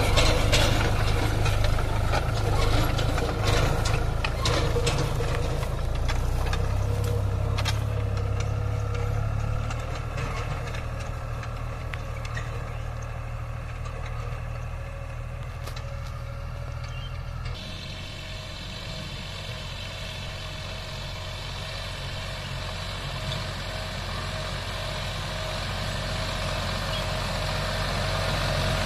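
Farm tractor's diesel engine running steadily while it pulls a disc harrow through the soil, with scattered clicks and rattles in the first several seconds. The engine fades as the tractor moves away, then grows louder again near the end as it comes back.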